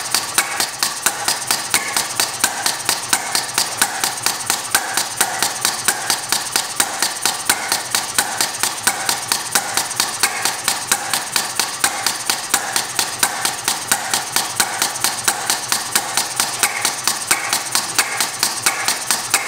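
Model hit-and-miss compressed-air engine running in hit-and-miss mode, giving a steady mechanical clicking about four times a second, with brighter hissy bursts every second or so. Its flyball governor's latch holds the inlet valve shut until the engine slows, then lets the air in for a power stroke.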